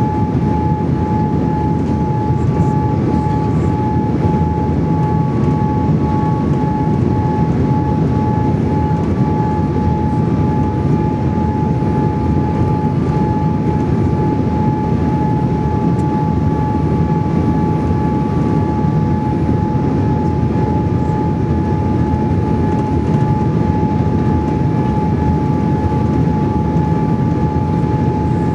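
Cabin noise of a Boeing 787-8 Dreamliner on final approach: the steady rush of its GEnx turbofan engines and the airflow, with a steady whine over it.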